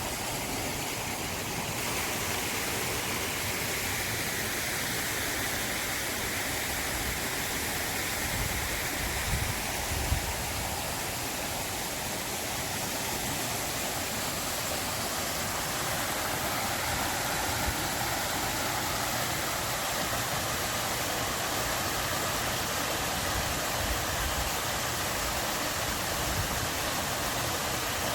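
Forest stream running steadily, a continuous rush of water. A couple of brief low bumps come about ten seconds in.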